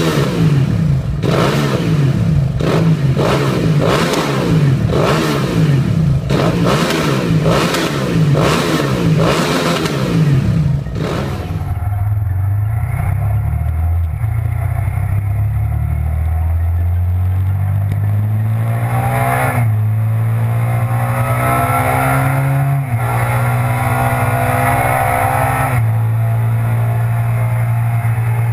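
Italika RT 650 sport bike's V-twin engine through an aftermarket slip-on exhaust, revved hard over and over while parked, about one blip a second. Then a motorcycle engine under hard acceleration with wind rush, pitch climbing and dropping at three upshifts in the second half.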